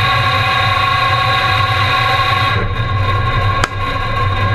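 Electric motor of a cable-driven shooting-range target carrier running steadily, a fixed whine over a low hum. A sharp click comes about three and a half seconds in.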